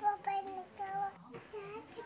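A young child singing quietly to herself in short held notes.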